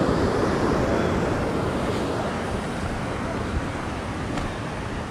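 Steady rush of wind buffeting the microphone, with a low fluttering rumble that eases slightly toward the end.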